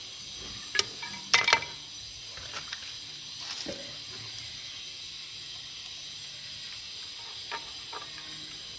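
Metal clinks and knocks of a Yuken A70 piston pump's cylinder block being worked loose and lifted out of its housing by hand: a few sharp knocks, the loudest about a second and a half in, then scattered lighter clicks over a steady hiss.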